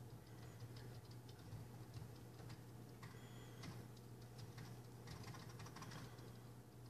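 Near silence: a faint steady low hum with scattered light ticks.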